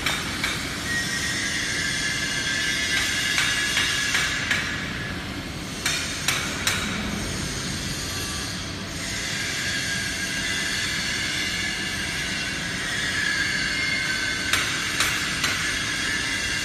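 Factory machinery noise: a steady high-pitched whine over a constant hum, with a few sharp metallic knocks in small clusters about six seconds in and again near the end.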